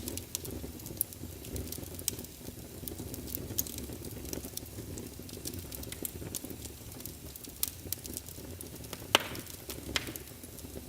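Campfire burning, with a steady low rumble and irregular sharp crackles and pops from the wood, two louder pops near the end.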